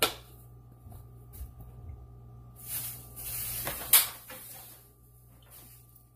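Kitchen handling noises: a click, then about a second of rustling that ends in a sharp click near the middle, over a steady low hum.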